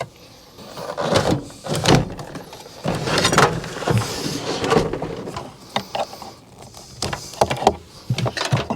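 Interior trim parts of a truck being handled and removed to reach a panel: irregular clicks, knocks and scraping or rustling.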